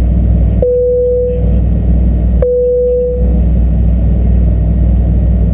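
A Fokker 100's two Rolls-Royce Tay 650-15 turbofans running with a steady deep rumble, heard from inside the cabin during the takeoff roll. A single-tone cabin chime rings twice, about two seconds apart, each note fading within a second.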